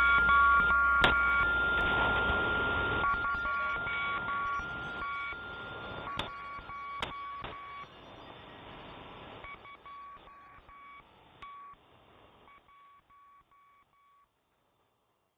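Electronic beeping, a single tone switching on and off in short bursts over a bed of hiss and rumble, with a steadier higher tone underneath for the first half and a couple of sharp clicks. The whole thing fades out gradually to silence near the end.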